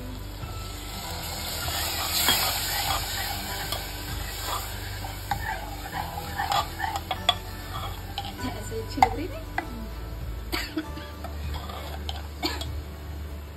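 Water poured from a steel jug onto spiced potatoes in hot oil in a pressure cooker, hissing and sizzling for a couple of seconds; then a steel ladle stirs the curry, with scattered clinks and knocks of the ladle against the pot.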